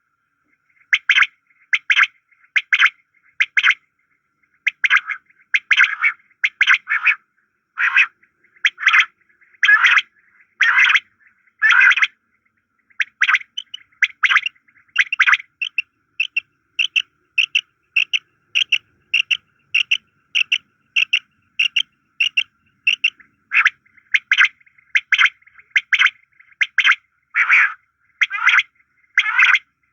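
Common quails calling: short, sharp notes in quick groups, repeated over and over, with a run of faster, evenly spaced, lighter notes in the middle.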